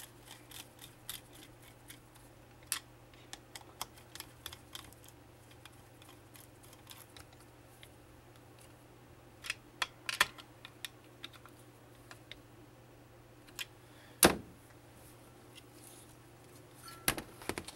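Small metal clicks and taps from parts of a 48RE transmission valve body being handled and a filter adapter being pressed on with a screwdriver, on a metal workbench, with one sharp knock about fourteen seconds in. A faint steady hum runs underneath.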